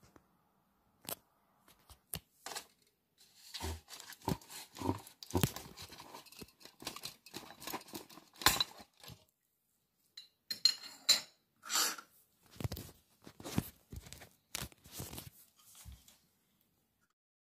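Handling noises: irregular clicks, scrapes and crinkles as compact fluorescent lamps are picked up and set down on tile over a crinkly plastic sheet and paper. The sounds stop about a second before the end.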